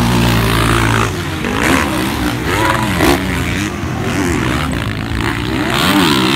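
Motocross dirt bikes racing on a dirt track, their engines revving up and falling back again and again, about once a second, as the riders work the throttle over jumps and through corners.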